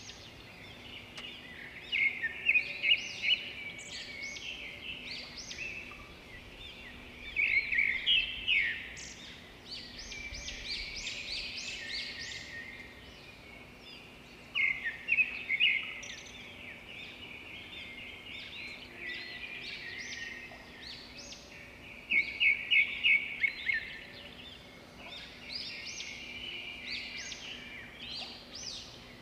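Birds singing in repeated bursts of quick, high chirps and trills every few seconds, over a faint steady hum.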